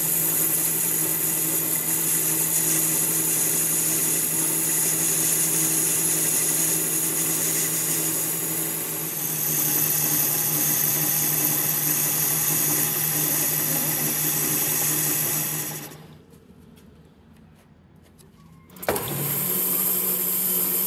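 Metal lathe running steadily, with a low hum and a high whine, while turning a steel bearing sleeve. About three-quarters of the way through the sound drops almost away for about three seconds, then comes back abruptly with a click.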